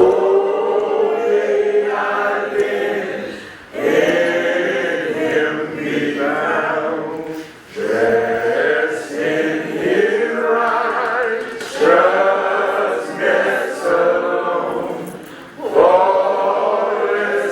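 A choir singing, in phrases of about four seconds with brief pauses between them.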